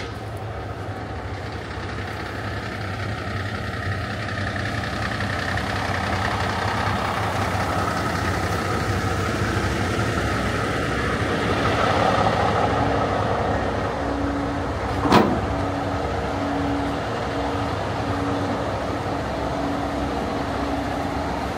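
Heavy diesel truck engines running, growing louder toward about twelve seconds in, with one sharp clack about fifteen seconds in and a repeating low beep through the second half.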